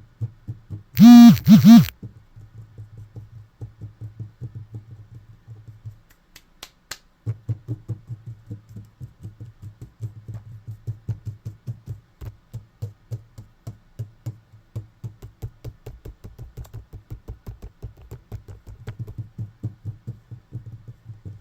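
Rapid, uneven hand-made tapping and snapping clicks, played as a home-made percussion rhythm over a low steady hum. About a second in come two brief, very loud, distorted pitched sounds.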